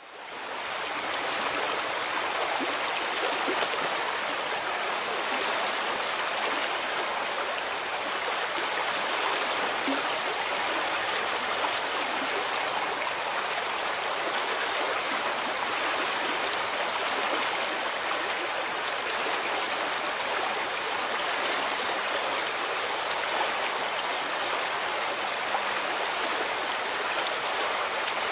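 Common kingfisher giving short, shrill high calls, now single and now in quick pairs, a few seconds apart and loudest near the start and end. Under them runs the steady rush of a stream.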